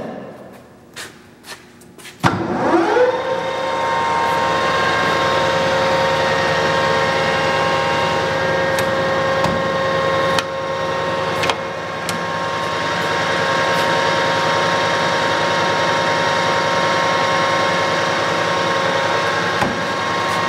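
Clausing Colchester 600 Series geared-head lathe: a few clicks from its controls, then the 3 hp spindle starts about two seconds in, spins up within a second, and runs steadily at its 1200 rpm setting with an even hum of several steady tones.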